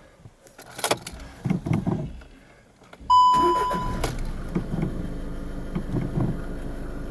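Keys jangle at the ignition. About three seconds in, the VW Golf 7's engine starts with a short warning beep from the dash, then settles into a steady idle. This is the first start after the battery replacement.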